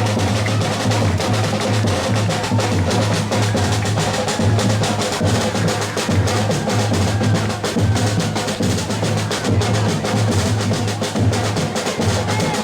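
Music with dense, continuous drumming.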